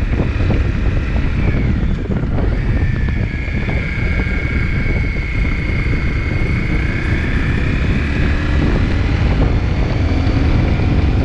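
Motorcycle riding at road speed: heavy wind buffeting on the microphone over the running engine, with a high whine that dips in pitch and comes back.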